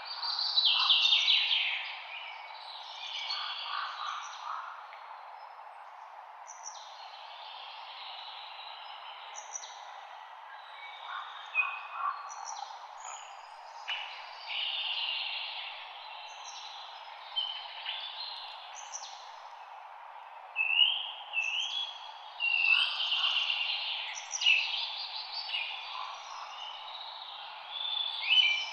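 Several songbirds singing in overlapping phrases of quick repeated chirps and short whistles, over a steady background hiss of light wind in leaves.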